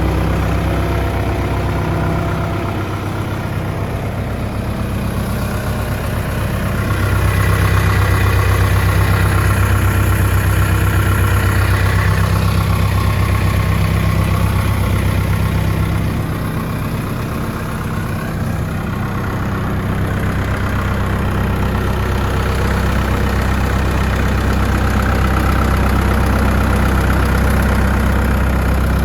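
Mauldin 1750-C asphalt paver's diesel engine running steadily at an even speed. It gets louder about seven seconds in, drops back around sixteen seconds, and grows louder again after about twenty seconds.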